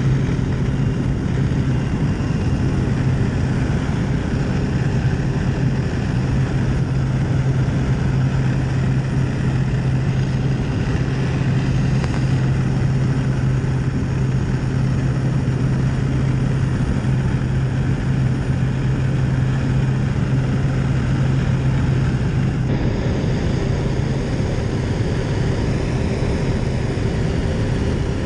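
Single-engine propeller plane droning steadily, heard from inside the cabin with rushing air. About three-quarters of the way through the sound changes abruptly: the low hum drops away and a higher steady tone takes over.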